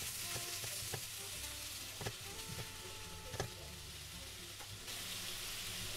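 Chopped onion, bell pepper and garlic sautéing in coconut oil in a pan: a steady sizzle, with three sharp knocks as the vegetables are stirred with a silicone spatula.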